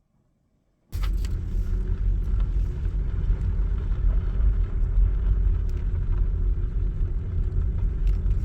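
Car being driven, heard from inside the cabin: a steady low rumble of engine and tyre road noise that starts abruptly about a second in.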